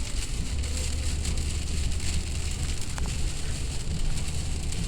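Heavy rain falling on a moving car, heard from inside the cabin as a steady hiss over the low rumble of road and engine noise at highway speed.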